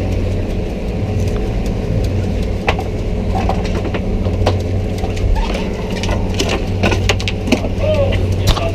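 Fishing boat's engine running steadily at low speed, with scattered knocks and clatter on deck that come thickest near the end.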